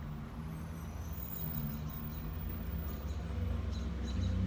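Low, steady motor-vehicle rumble that grows louder near the end, with a few faint high chirps over it.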